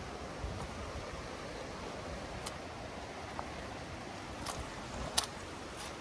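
Steady rushing of river water, with soft footsteps on a muddy path and a few sharp clicks, the sharpest about five seconds in.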